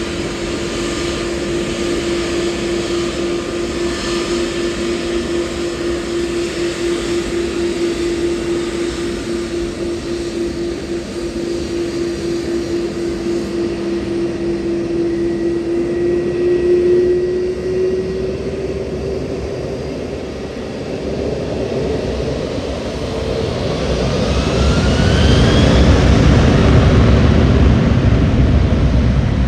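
Jet airliner engines: a steady whine that edges up in pitch partway through, then a louder low rumble with rising whines building over the last several seconds.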